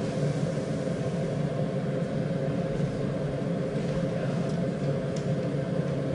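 Steady low rumble with a faint hiss from a gas range burning on high under a pan.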